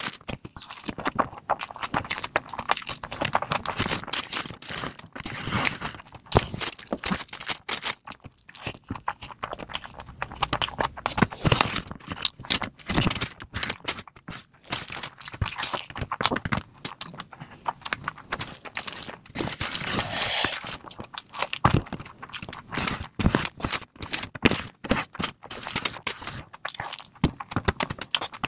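Close-miked eating: wet chewing and lip-smacking of mouthfuls of rice, with the hand scooping and squeezing rice on a banana leaf, heard as a dense run of irregular clicks and smacks.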